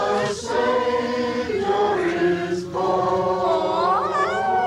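A group of voices singing together, holding long notes that shift in pitch every second or so.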